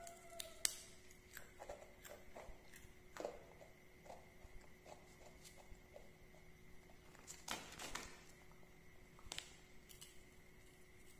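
Faint, scattered crackles and rustles of a plastic snack bag and crisp crackers as a baby monkey picks through the bag and eats. There is a sharp click just under a second in and a longer crinkle past the middle.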